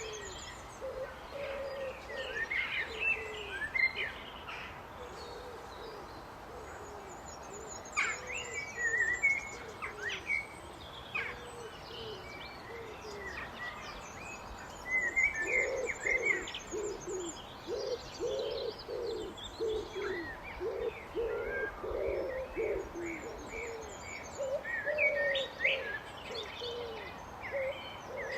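Common blackbird singing short fluty, warbling phrases every few seconds. Under them another bird gives a repeated low cooing call, which becomes a quick run of notes about halfway through, and faint high twittering from small birds comes and goes.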